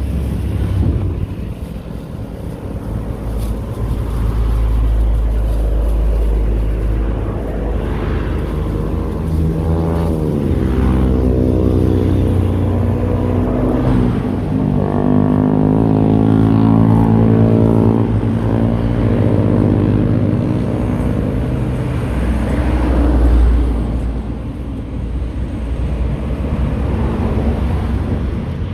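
Road traffic passing along the highway, with deep low rumble throughout. Through the middle a heavy vehicle's engine comes up in pitch and then falls away.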